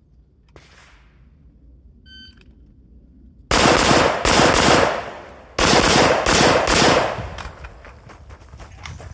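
A shot timer's start beep, then a rifle firing two quick strings of shots with a short pause between them as the shooter moves from one side of the targets to the other. The shots echo and ring out in the room afterwards.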